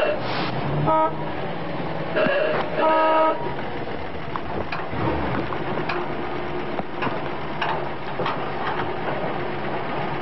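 An old car's horn tooting four times in quick succession, the last two longer, followed by the car's engine running as it drives slowly toward the listener.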